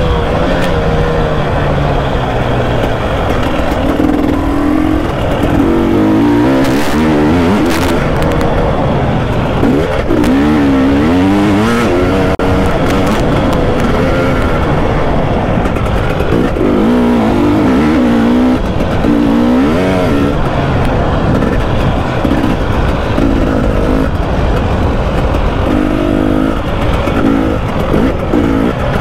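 KTM 300 two-stroke dirt bike engine being ridden hard, revving up and down over and over, its pitch rising and falling with the throttle.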